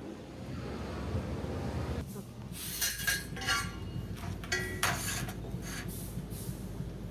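A long steel bar clinking and rattling against a thin galvanized steel sheet as it is lowered and laid along the sheet on concrete, in two clusters of ringing metal clinks about three and five seconds in, over a low steady rumble.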